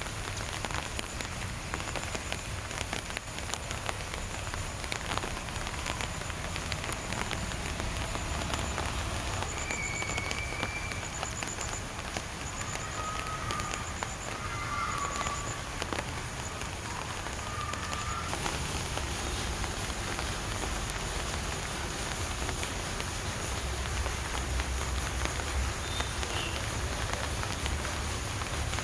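Steady rain falling, a dense patter of drops with crackly ticks. About midway there are a few faint, short whistled notes.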